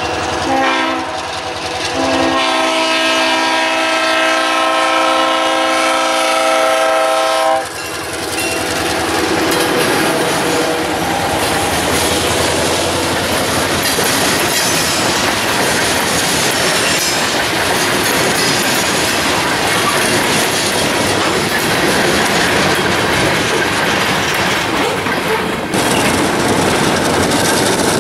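Diesel freight locomotive's air horn blowing at a grade crossing in blasts, the last held for about five seconds and stopping about seven and a half seconds in. Then the train's covered hopper cars roll past, wheels clacking over the rail joints in a steady rumble.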